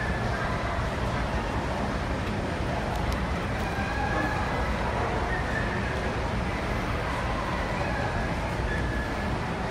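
Steady hubbub of a large indoor exhibition hall: many distant voices blending over a constant low background rumble.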